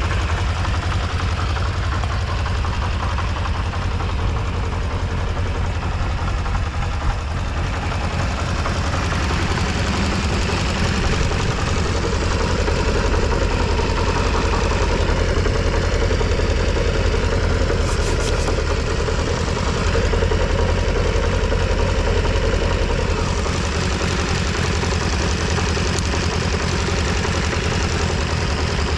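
Stock Kawasaki GPZ400R's inline-four engine running steadily at idle, with no abnormal noises and running smoothly by the seller's account.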